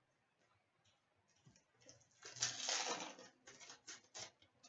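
Trading card pack being handled and opened: a brief crinkling rustle of the wrapper about two seconds in, followed by a few light clicks and taps of cards.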